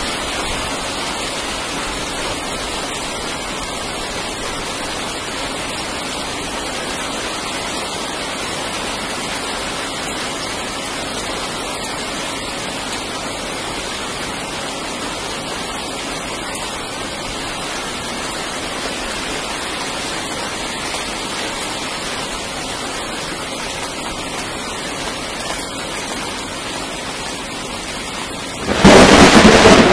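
Steady hiss of falling rain. Near the end a very loud thunderclap breaks in suddenly and keeps rumbling on.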